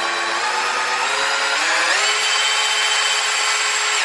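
A power drill spins a 24-volt DC motor that is being used as a generator. It makes a mechanical whine that rises in pitch for about two seconds, holds steady, and cuts off at the very end.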